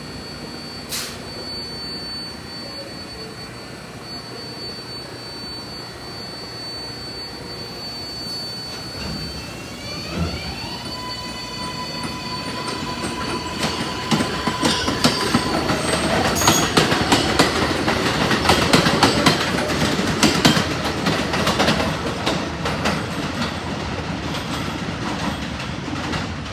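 R142A New York City subway train: a steady high whine, then about ten seconds in its propulsion whine rises in stepped tones as it accelerates, followed by loud, rapid clattering of steel wheels over rail joints on the elevated structure, with some wheel squeal.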